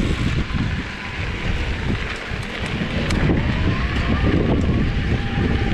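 Wind buffeting the microphone while riding an electric mountain bike on a dirt trail, over a steady rumble of tyres and bike on the ground. A faint whine rises and falls in the middle.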